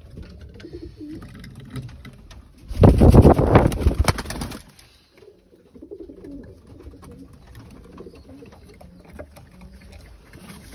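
Tippler pigeons cooing in the loft, low and rolling. About three seconds in comes a loud, noisy burst lasting roughly two seconds.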